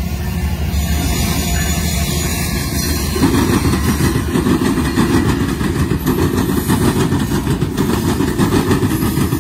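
GE diesel-electric freight locomotives, an ET44AC leading, passing close by: engines running under power over the rumble of wheels on rail, growing louder about three seconds in.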